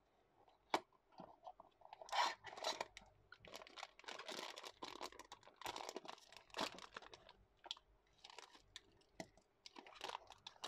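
A cardboard blind box opened by hand, with a sharp click about a second in, then a foil bag torn open and crinkled: dense, irregular crackling from about two seconds on.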